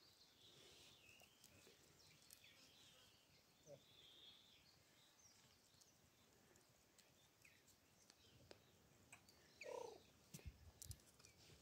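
Mostly near silence, with faint high bird chirps. Near the end comes one short low call from a hamadryas baboon, followed by a low rumble.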